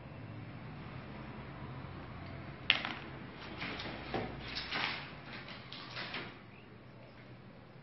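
A sharp knock a little under three seconds in, then a run of short scraping and clattering noises over the next few seconds, over a faint steady low hum.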